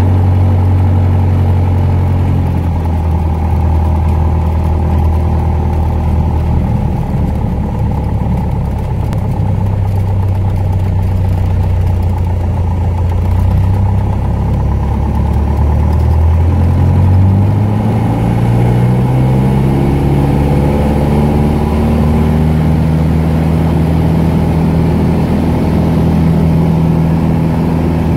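Piper Warrior's four-cylinder Lycoming engine and propeller heard from inside the cabin. It runs at a steady low power, then rises in pitch a little over halfway through as the throttle is opened for the takeoff roll, and holds at the higher note.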